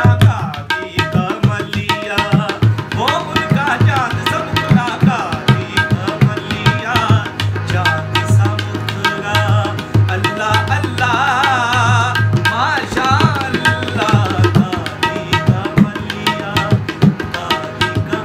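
Qawwali-style music: a tabla pair played in a steady driving rhythm, the deep bayan booming under the sharp dayan strokes, over the held drone and melody of a harmonium, with a male voice singing ornamented, fast-wavering runs.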